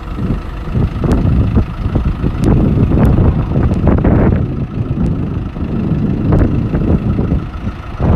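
A motor vehicle's engine running unevenly, with a few short sharp knocks over it.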